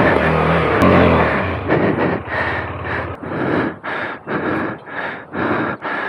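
Motorcycle engine running and being revved on a trail. After about two seconds its sound rises and falls in quick, even pulses, about two a second.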